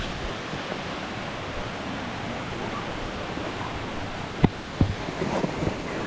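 Steady rush of flowing water. Two sharp knocks come close together a little over four seconds in.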